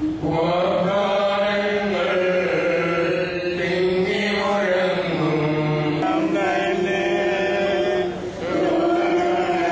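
Slow liturgical chant sung with long held notes, pausing briefly about eight seconds in.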